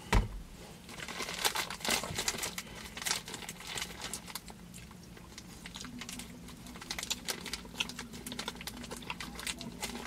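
Packaging of a pack of beef jerky crinkling and rustling as it is handled and opened, with scattered small clicks and a sharp click right at the start.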